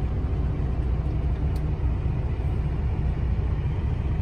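Semi-truck's diesel engine and road rumble heard from inside the cab while driving: a steady low drone.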